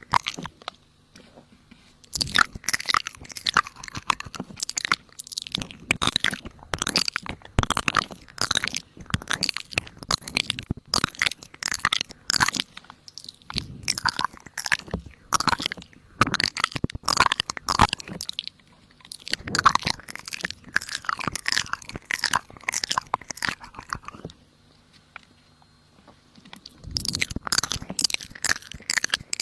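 Rapid, irregular crunching, with a pause of about two seconds near the start and another near the end.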